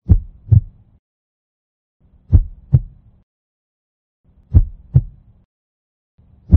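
Heartbeat sound effect: deep double thumps, lub-dub, repeating about every two seconds with silence between. Three pairs, and a fourth begins at the very end.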